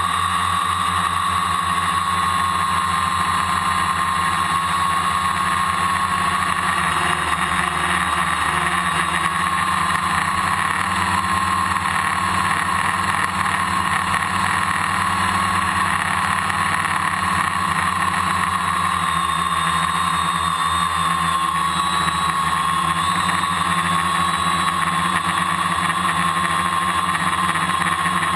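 A multirotor drone's electric motors and propellers running in flight, heard from the drone's own onboard camera: a steady hum whose pitch wavers slightly as the motors adjust their speed.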